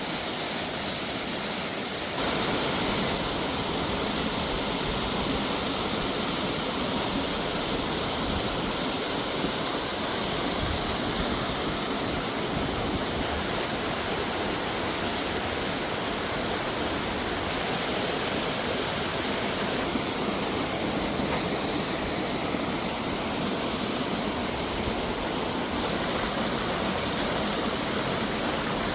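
Rushing water of a mountain stream or waterfall, a steady even roar that shifts abruptly in tone a few times.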